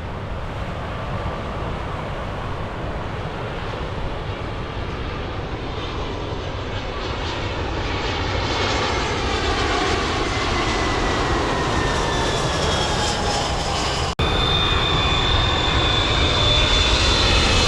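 Passenger jet on final approach, its engines growing steadily louder as it comes in low overhead, with a whining tone that slides slowly down in pitch in the second half. The sound cuts out for an instant about fourteen seconds in.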